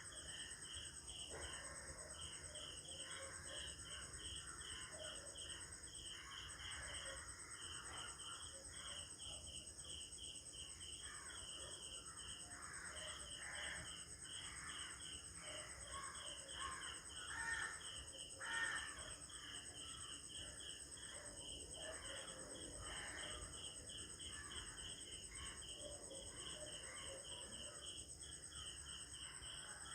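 Early-morning village ambience: a steady high insect drone and evenly repeated cricket chirps, with crows cawing and other birds calling over them. Two louder calls come a little past the middle.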